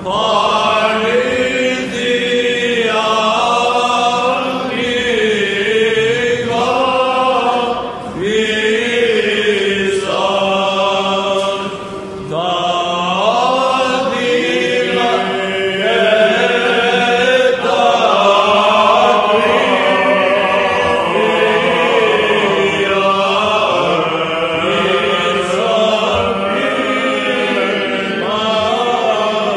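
Byzantine chant: a slow melismatic line sung over a steady held drone (ison) from the other chanters, with short breaths about eight and twelve seconds in.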